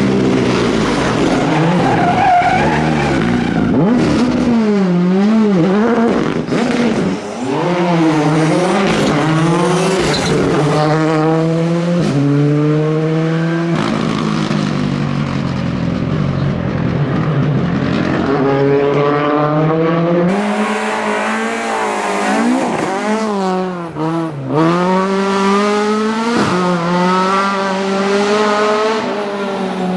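Classic rally car engines running hard: the pitch climbs repeatedly and falls sharply at each gear change, and dips and swells as the cars lift off and accelerate again.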